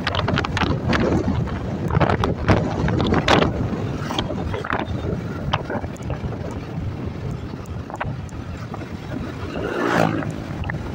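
Wind rushing and buffeting over the microphone of a moving Yamaha motor scooter, with the scooter running underneath; irregular sharp gusts throughout and a louder swell near the end.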